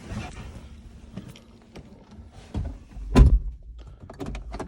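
A Seat Leon car door shut with a single heavy thunk about three seconds in, after a few light clicks and handling sounds.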